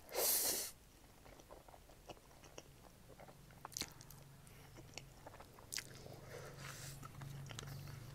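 A short, loud slurp as a mouthful of ramen noodles is drawn in with chopsticks, then close-up chewing with soft wet mouth clicks.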